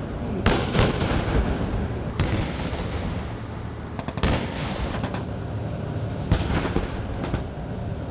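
Live-fire explosions bursting along a riverbank: an irregular run of about a dozen sharp blasts, each trailing off, over a steady low rumble.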